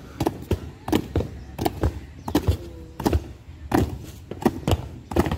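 Drill boots of marching cadets striking a concrete road, a run of heavy footfalls about two to three a second, some landing as close doubles.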